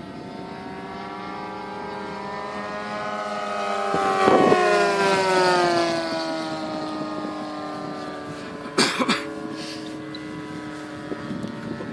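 Radio-controlled model warplane's engine on a low pass: the note grows louder, peaks about four to five seconds in, then drops in pitch as the plane goes by and fades. A short sharp knock near nine seconds in.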